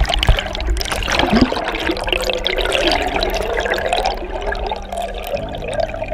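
Muffled churning and gurgling of water, heard with the camera held underwater, with a couple of knocks in the first second or so.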